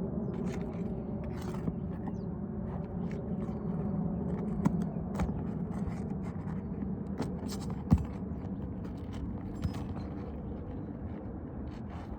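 Scraping and prying under brittle asphalt roof shingles as a nail is worked loose, with scattered small clicks and two sharper knocks, the louder about eight seconds in. A steady low rumble lies under it all.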